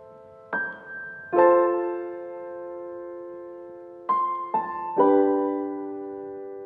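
Background music: slow, soft piano chords, each struck and left to ring and fade. There is a long pause after the first two, then three come in quick succession about four seconds in.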